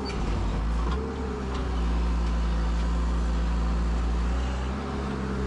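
Diesel engine of a compact construction machine running steadily while working, with a slight rise in level about a second and a half in.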